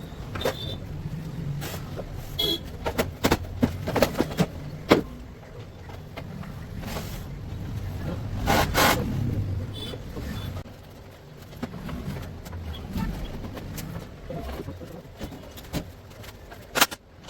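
Sharp clicks and knocks of tools and plastic body parts being handled while a scooter is dismantled, over a low vehicle rumble. There is a louder rush of noise about halfway through.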